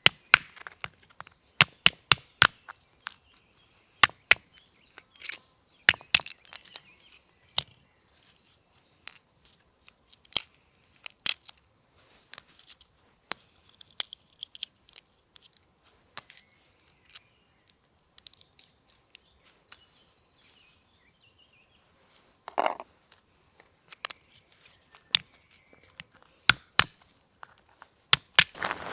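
Walnuts being cracked open: many sharp, irregular cracks and snaps of shell breaking, with quieter crinkling of shell fragments between them and one duller crunch a little after two-thirds through.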